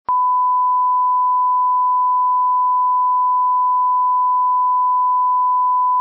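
Steady 1 kHz line-up test tone, the reference tone that goes with colour bars, starting with a click.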